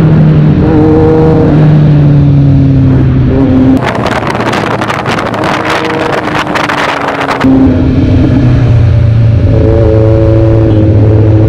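Kawasaki Z900's inline-four engine through an aftermarket Racefit exhaust, riding along with its pitch slowly falling as the throttle eases. From about four to seven and a half seconds it drops back under a quieter rushing, crackling wind noise. The engine then comes back loud at steady revs.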